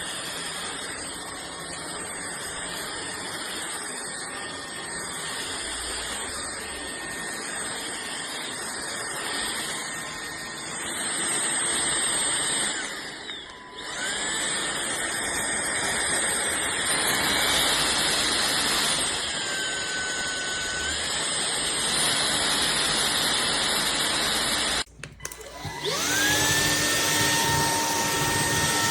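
Cordless stick vacuum running with a steady rushing noise and a high motor whine. About halfway the sound dips and the whine climbs back up; near the end the motor stops briefly and restarts, its whine rising as it spins up.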